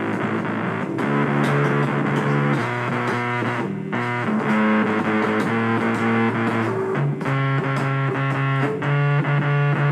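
Music: distorted electric guitar played through effects, a run of sustained notes and chords that change every second or two, with brief breaks about a second in, near four seconds and near seven seconds.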